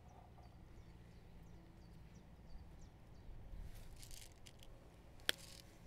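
Quiet outdoor ambience: a low steady rumble with a few faint, short high chirps, and a single sharp click about five seconds in.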